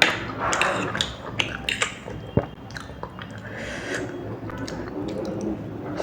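A person chewing food close to the microphone, with irregular sharp clicks and mouth sounds.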